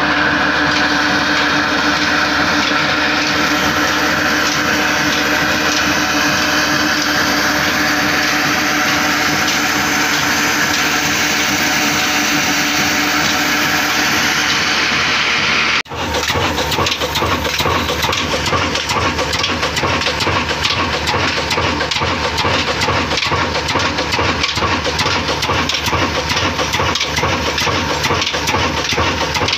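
Belt-driven stone flour mill (chakki) grinding wheat, a steady hum, powered by an old single-cylinder Ruston Hornsby diesel engine. About halfway through it changes abruptly to the engine heard up close, running at a steady, even beat of firing strokes.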